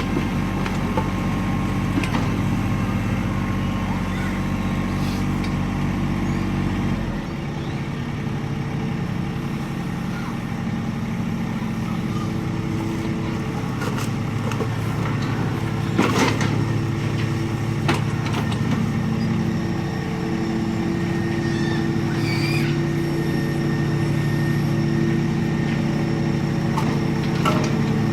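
John Deere 2320 compact tractor's 24 hp three-cylinder diesel running steadily, its note changing abruptly about a quarter of the way in. A few sharp knocks ring out past the middle.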